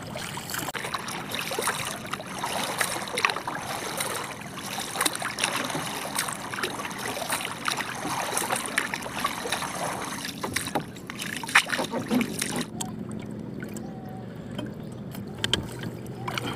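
A paddle dipping and pulling through sea water beside a small outrigger canoe, with splashing and dripping from each stroke. The splashing stops about three-quarters of the way through, leaving a quieter low hum.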